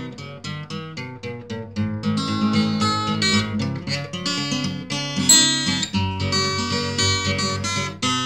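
Background music: acoustic guitar playing a run of quick plucked notes that settles into fuller chords and strumming.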